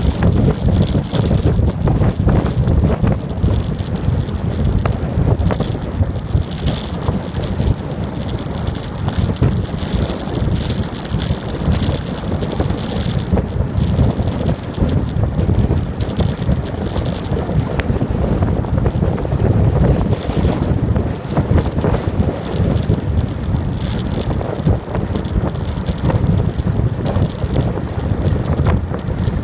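Steady wind buffeting the microphone of a camera riding along a road, a loud low rumble with road noise mixed in.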